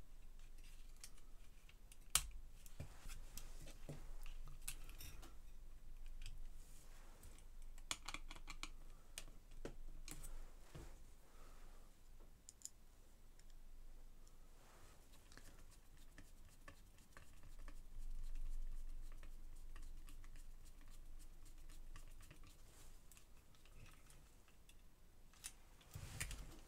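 Irregular small clicks, taps and light scrapes of hands handling the iMac G3's CRT neck and yoke assembly and its wiring, with small screwdrivers and pliers being picked up and set down. A sharp click comes about two seconds in and a short cluster of knocks near the end.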